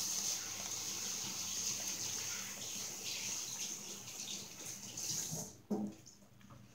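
Chihuahua chewing dog treats close to the microphone, with steady wet crunching and smacking that stops about five and a half seconds in, followed by a single short knock.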